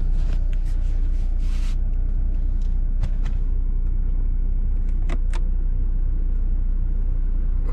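Car engine idling, heard inside the cabin as a steady low rumble. Over it come sharp clicks from controls being handled: a quick run in the first couple of seconds, then pairs about three and five seconds in.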